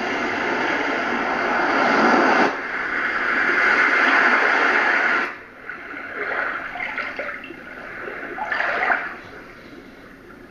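A MOICO sleep sound machine's small speaker playing recorded ocean and water sounds, a steady wash of surf. The track cuts abruptly to another water recording twice, about 2.5 and 5 seconds in, after which the sound is quieter with separate swells.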